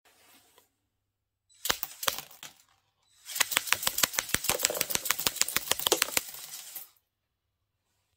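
Lego Technic carousel autoloader spinning, its plastic parts rattling and clicking rapidly at about seven clicks a second for some three and a half seconds. A shorter burst of clicks comes about two seconds in, before the main run.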